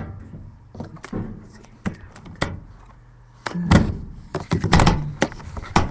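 A run of sharp clicks and knocks from a locker door and its latch being worked, sparse at first and then a busy cluster of louder clatter from about three and a half seconds in.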